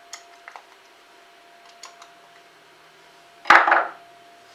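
Small metal clicks of a screwdriver working the balancing-weight screws on a grinding wheel's flange, then a single loud clatter with a thud about three and a half seconds in.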